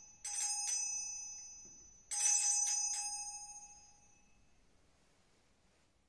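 Altar bells shaken twice, about two seconds apart, each a quick cluster of bright, high ringing strikes that rings on and fades, the second dying away over nearly two seconds. The bells mark the elevation of the chalice after the consecration at Mass.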